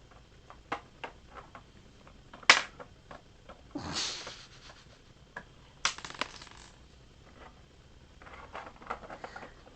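Small hard plastic toy pieces being handled and dropped on a hard surface: scattered light clicks, a sharp knock, then a clattering crash and a second rattling clatter, with light ticking and rustling near the end.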